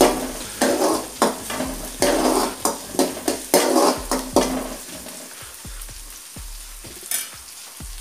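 Metal ladle scraping an aluminium kadai about twice a second as it stirs chopped onions frying in hot oil, with a steady sizzle. The onions are being sautéed until soft. The stirring stops about halfway through, leaving a fainter sizzle.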